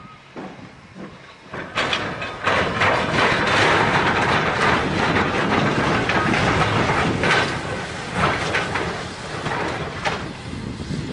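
Steam locomotive hauling a train of coaches past at close range, its exhaust beats and escaping steam mixed with the rolling of the wheels. It grows loud about two seconds in as the engine draws near.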